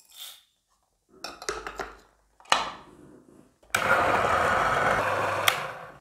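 Niche Zero conical burr coffee grinder running for about two seconds, grinding at its finest setting. A short rattle and a sharp click come before it.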